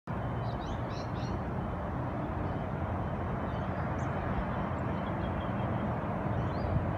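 Steady outdoor rumble with a few faint bird chirps, about a second in and again later.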